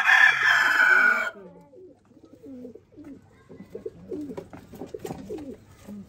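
A rooster crows loudly for just over a second at the start. Pigeons coo in low, wavering calls throughout.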